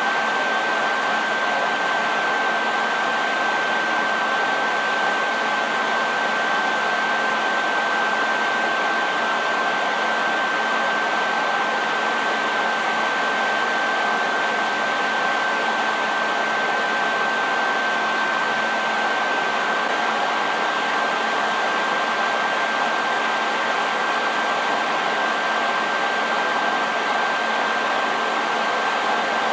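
Hair dryer running steadily: a constant rush of air with a thin high whine from its motor and fan, unchanging throughout.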